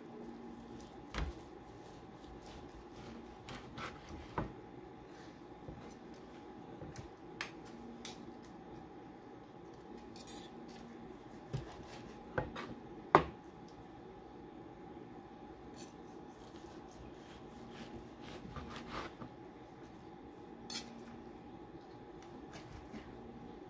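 Knife slicing through a cooked pork roast on a plastic cutting board, with scattered clicks and knocks of the blade and a fork against the board; the loudest knock comes about 13 seconds in. A faint steady hum runs underneath.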